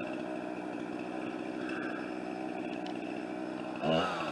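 Chainsaw idling steadily, then revving up near the end.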